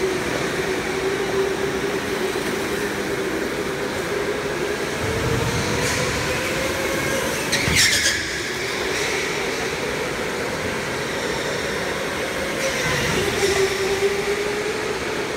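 Indoor go-karts' electric motors whining as the karts race round the track, a steady tone that slowly rises and falls with their speed. About eight seconds in, a brief sharp squeal, likely a tyre scrubbing through a turn.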